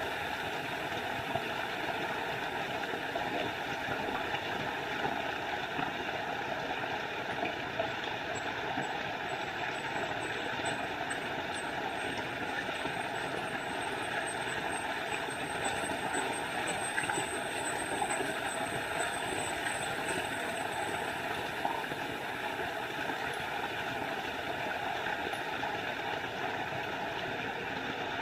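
Small forest waterfall splashing with a steady, unbroken rush of water.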